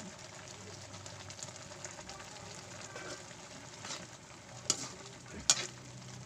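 Pancit noodles sizzling in a frying pan while being stirred, with the stirring utensil knocking sharply against the pan twice near the end.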